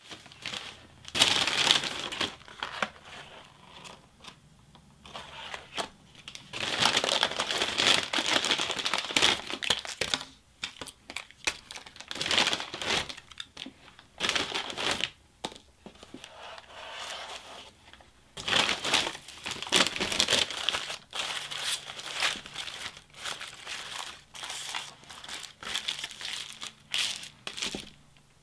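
Paper fast-food bags and sandwich wrappers crinkling and rustling as the food is taken out and unwrapped, in uneven bouts with short pauses.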